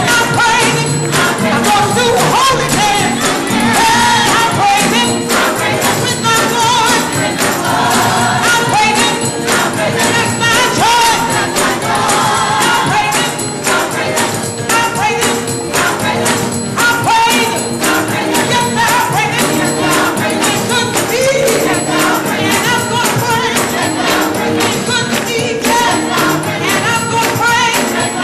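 Youth gospel choir singing with instrumental accompaniment, loud and steady throughout.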